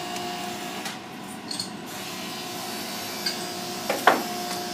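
Steady room hum with a few faint clicks and taps, and a brief voice sound about four seconds in.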